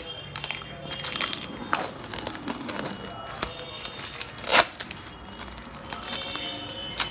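Packing material crinkling and tearing as it is pulled away by hand in irregular rustles, with one louder rustle about four and a half seconds in.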